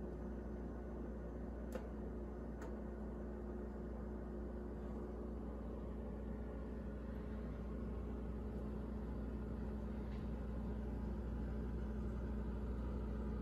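Refrigerator-freezer running with a steady low hum, with two faint clicks about two and two and a half seconds in.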